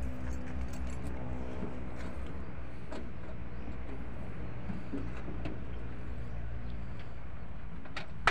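Light metallic clicks and clinks of a wrench working on the battery terminals, with a sharper clack near the end, over a steady low engine hum.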